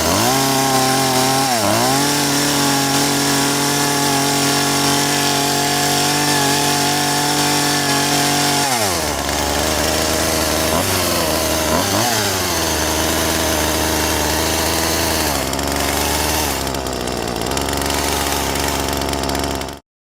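Chainsaw engine running: it revs up, holds a high steady pitch for several seconds, then drops to a lower, wavering pitch about nine seconds in, with a couple of brief revs, before stopping abruptly near the end.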